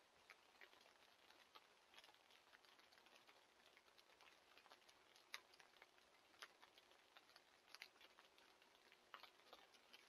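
Near silence, with faint, irregular small ticks and clicks scattered throughout and a slightly stronger click about five seconds in.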